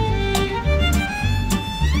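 Background music: a fiddle tune over a steady beat with bass.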